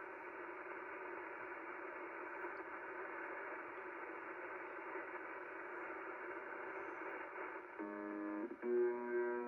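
Shortwave receiver audio on 4635 kHz: steady static hiss with faint tones. About eight seconds in, a loud, harsh buzz starts, with a short break after about half a second. It is the buzzer-like signal that the listener suspects is a pirate UVB-76 or a broken buzzer.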